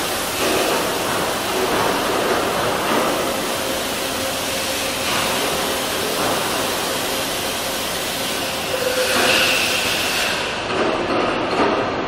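Vertical turning lathe machining a metal workpiece with a driven rotating tool under flood coolant: a steady rush of coolant spray and cutting. A higher cutting tone comes in about nine seconds in, and the hiss thins out shortly after.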